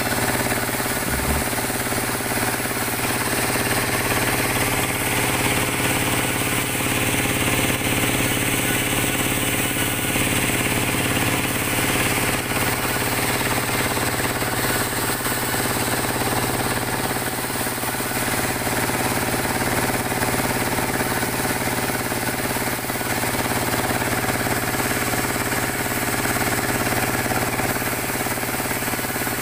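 Vertical frame saw (gang saw) running steadily, its reciprocating blades sawing through jabon logs in a rapid, continuous mechanical chatter.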